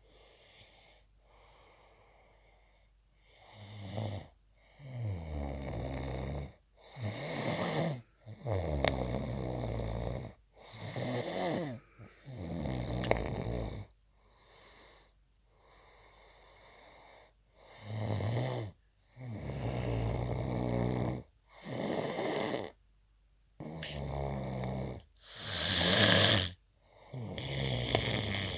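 Hard snoring: after a quiet first few seconds, about a dozen loud snores follow one another, each a second or two long with short pauses between. The loudest snore comes near the end.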